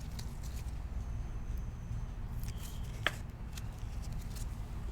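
Sports trading cards being handled, slid and flipped through by hand: a few soft flicks and one sharper click about three seconds in, over a low steady hum.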